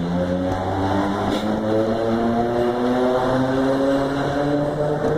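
Traction motors of a CPTM series 4400 electric multiple-unit train growling: several humming tones that shift up and down in pitch in small steps every half second or so, over a steady rumble.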